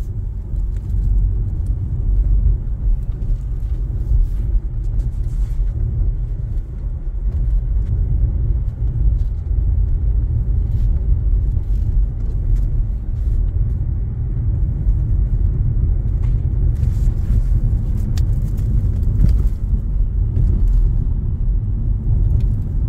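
Steady low rumble of engine and tyre noise heard from inside the cabin of a moving car.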